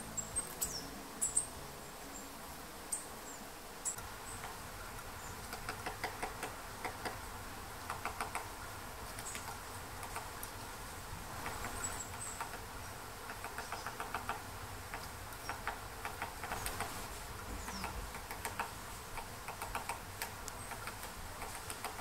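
Great spotted woodpecker pecking and chipping at birch bark while foraging: quick runs of soft taps that come back every second or two. A few thin, high bird calls sound now and then.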